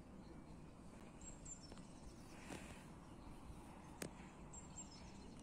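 Faint outdoor ambience with a few short, high bird chirps, heard twice, and a single sharp click about four seconds in.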